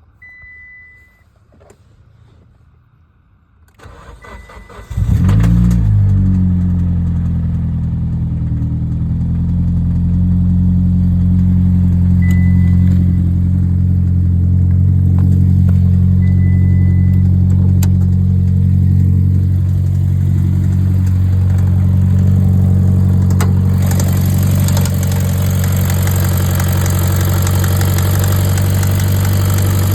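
Car engine cranked and catching about four seconds in, then idling steadily, a running sound the owner questions as possible rod knock. A short high beep sounds at the start and twice more faintly during the idle.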